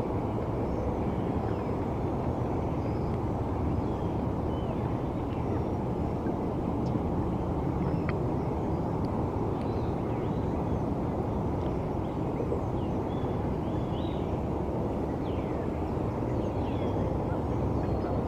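Steady low rumble of distant city traffic, with faint, short chirps of small birds scattered over it.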